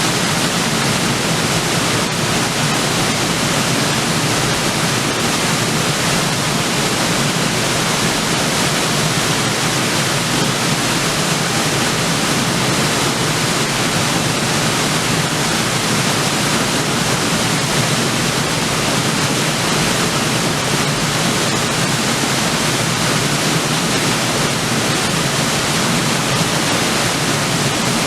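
A river waterfall pouring steadily into its pool: a constant, loud rush of falling water.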